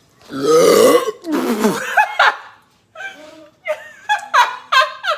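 A person burps loudly after gulping carbonated Sprite fast: one long, drawn-out burp starting just after the beginning and lasting over a second.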